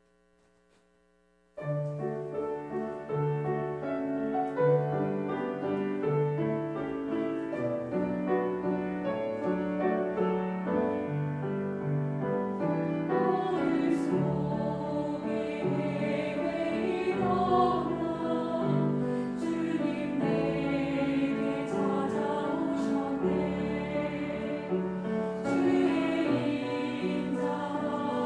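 Near silence, then about a second and a half in an instrumental introduction on piano and strings begins. About halfway through, a mixed church choir comes in, singing in Korean over the accompaniment.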